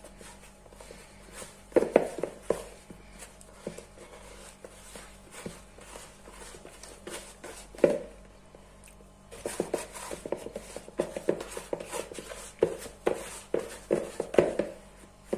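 Hands kneading soft yeast dough in a plastic bowl: irregular soft slaps and squelches of the dough, sparse at first, then coming thick and fast from about halfway through.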